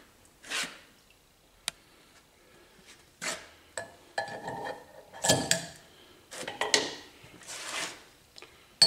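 Scattered metal clinks and handling knocks as a hot roller bearing is lifted out of a pan of heated oil and set onto an air-compressor crankshaft. One sharp click comes about two seconds in, and a run of knocks and rattles follows from about three seconds in.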